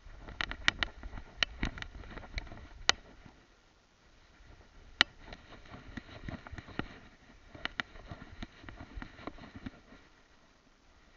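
Rubbing and knocking of a camera strapped to a dog's head as the dog moves through long grass: irregular sharp clicks and knocks with rustling, in two spells with a short lull about four seconds in, fading near the end.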